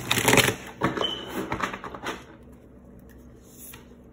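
Tarot cards being shuffled and handled: a loud riffle of the deck at the start, then several shorter card flicks and taps over the next two seconds.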